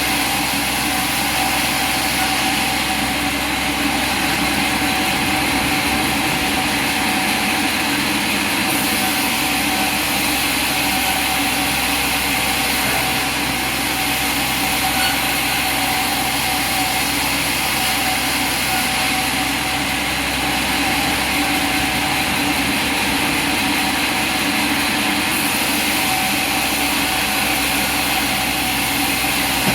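Sawmill machinery running: a steady, unchanging mechanical drone with a few constant tones in it and no separate cuts or knocks.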